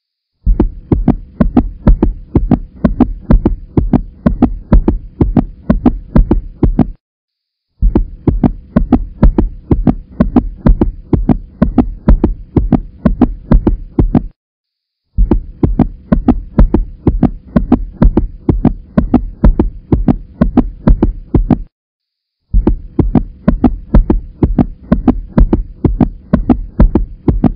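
A loud, bass-heavy rhythmic beat of about three thumps a second with a steady hum under it, playing in four stretches separated by short gaps of silence, like a looped backing track.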